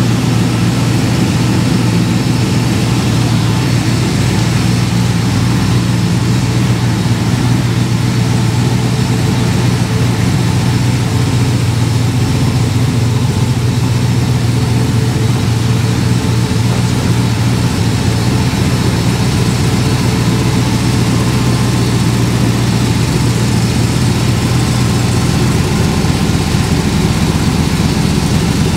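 Turbocharged Diamond T rat-rod truck's engine idling steadily, one deep even note with no revving.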